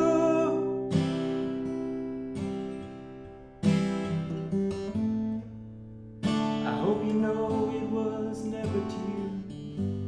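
Steel-string acoustic guitar being strummed. Chords are struck afresh about every two and a half seconds and left to ring and fade between strums.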